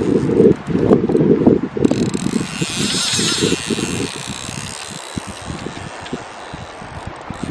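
Fly reel's click-and-pawl ratchet clicking rapidly for about two seconds as line runs through it while a hooked fish is played, starting about two seconds in. Wind rumbles on the microphone before it.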